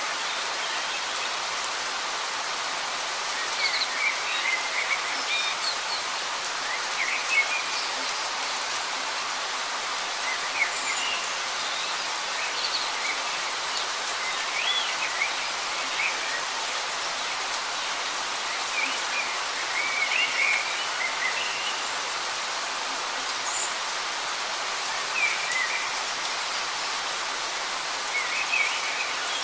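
Steady light rain falling, an even hiss, with birds chirping briefly every few seconds.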